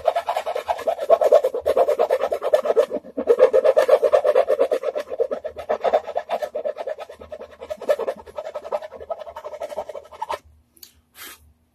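A hand file rasping back and forth in rapid strokes on the wooden edge of a guitar body, rounding over the square edge. The strokes stop abruptly about ten seconds in.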